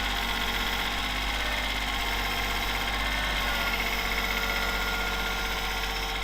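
A motor vehicle's engine running steadily at a held speed, an even drone.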